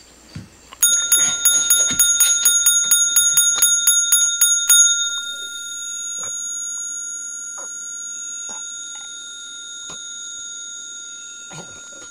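A small hand bell rung rapidly, about five strikes a second, for about four seconds. Its clear ring then hangs on steadily.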